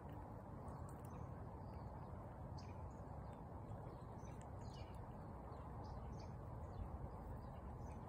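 Fox squirrel gnawing an almond: faint, scattered small crunching clicks over a steady low background rumble, with a few faint high chirps.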